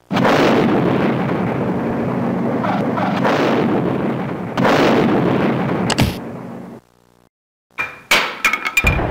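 Cartoon explosion sound effects: a long explosion lasting most of the first seven seconds, swelling again about halfway and cut by a sharp crack. Near the end comes a quick run of sharp, clattering hits with a ringing tone.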